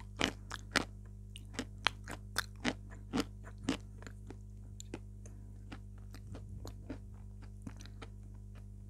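Close-miked chewing with crisp crunches, about ten sharp bites in the first four seconds, then only soft scattered mouth sounds. A steady low hum runs underneath.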